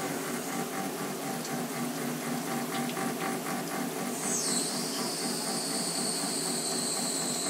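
Haas VF-1 CNC vertical mill running a woodruff cutter through a castle nut: steady machine noise with a light, even ticking in the middle. About four seconds in, a high whine drops sharply in pitch, then holds and slowly sinks.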